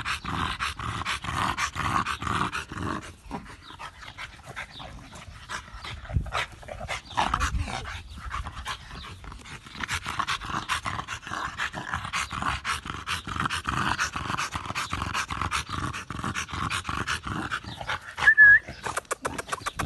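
A tri-colour blue bully-type dog panting heavily and rapidly, the panting easing for a few seconds about a third of the way in. A brief high squeak near the end.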